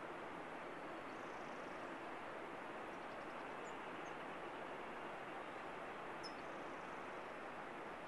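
Steady wash of distant breaking surf, with a few brief high bird chirps about four seconds in and again about six seconds in.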